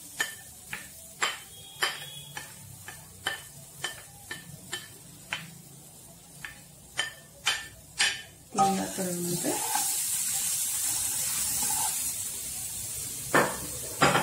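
Spatula working grated coconut into a non-stick kadai of dry-roasting spices and chillies: a run of sharp clicks and taps for about eight seconds, then a steady scraping hiss as the coconut and spices are stirred, with a couple of knocks near the end.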